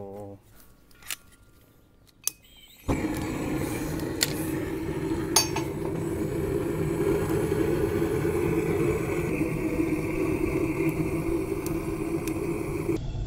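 A couple of faint clicks, then about three seconds in a propane torch lights suddenly and burns with a steady, loud rushing noise as it is held into a smoker's firebox to start the wood, with a few light metal clinks.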